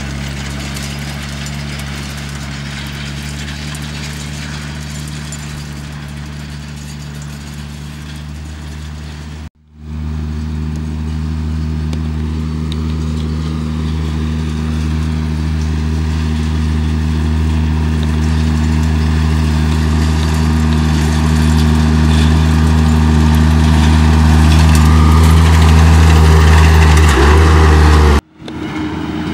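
Deutz tractor's diesel engine running at steady working revs as it pulls a twin-rotor hay rake. It grows steadily louder as the tractor comes close. The sound breaks off abruptly about ten seconds in and again just before the end.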